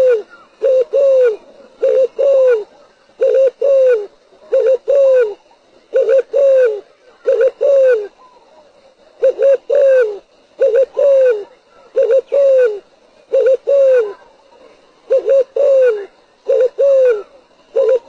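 Spotted dove cooing: a series of repeated phrases, each a couple of quick short coos followed by a longer coo that falls in pitch, about one phrase every second and a half.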